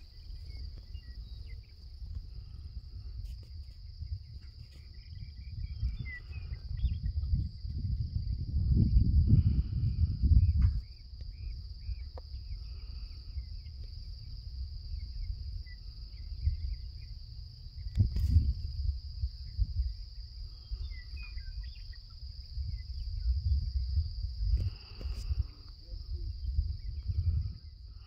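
A steady, high-pitched chorus of insects chirping at dusk, with a low rumble on the microphone that swells for a couple of seconds about eight seconds in.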